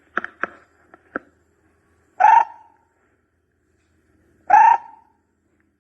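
Barbet calling: two loud, hollow hoots about two and a half seconds apart, used as a decoy call. A few sharp clicks come in the first second or so.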